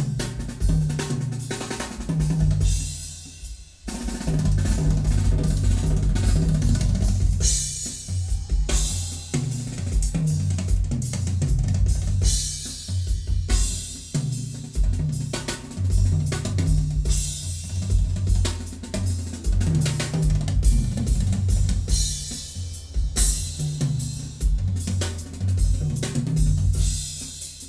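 Percussion music, a drum kit with heavy bass drum, snare and cymbals, played back through a vintage Sansui QRX-7500 receiver with its tone settings flat. The beat stops briefly about four seconds in, then carries on.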